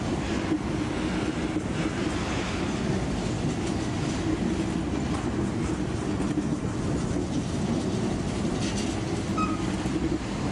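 Amtrak Superliner bilevel passenger cars rolling past close by, their steel wheels running on the rails in a steady, unbroken noise.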